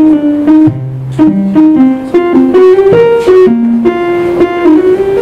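Analog synthesizer playing a quick melodic run of short pitched notes, a few a second, stepping up and down in pitch, with one lower note about a second in.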